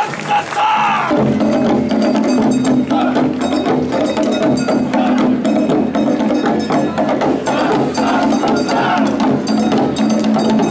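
Festival music that starts about a second in: a held low tone with a rhythm of repeated metallic, bell-like strikes and wooden clacks over it.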